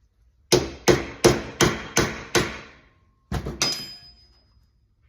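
Hammer blows on a steel door hinge from a 1966 Chevrolet C10, held in a vise, to drive out its worn hinge pin. Six quick strikes come about three a second, then after a pause two more, the last leaving a short metallic ring.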